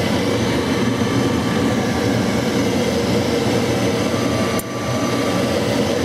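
Carrier Crusader gas furnace's inducer (draft) fan motor running steadily with a constant hum. This is the purge stage of the start-up, with the new control board calling for heat before the hot-surface igniter glows. A short click sounds about four and a half seconds in.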